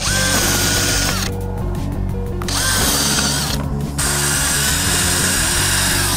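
Cordless drill running in three bursts with short pauses, boring into a small pumpkin to hollow it out, over background music.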